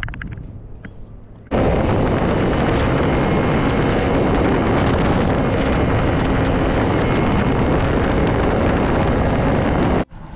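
Flats boat running at speed on its outboard motor, a steady engine drone with heavy wind on the microphone. It starts abruptly about a second and a half in and cuts off just before the end.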